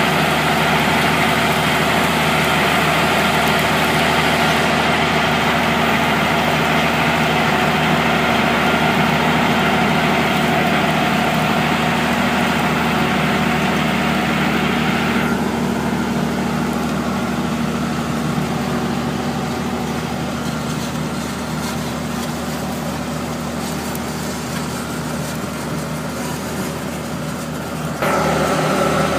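Heavy tractor engine drone with the noise of a Grizzly Tiny 460 tillage implement, its discs and ripper tines working through dry soil. The high hiss drops away suddenly about halfway through, and the sound changes abruptly again near the end.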